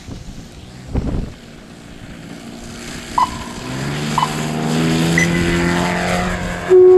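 Engine of a large aerobatic radio-controlled airplane running up for takeoff, its pitch rising then holding steady as it gets louder, with a low thump about a second in. Near the end it cuts off suddenly and a flute-like music track starts.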